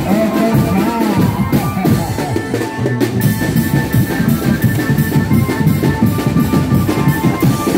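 Music with a steady drum-kit beat; a wavering melody line sounds over it in the first second or so.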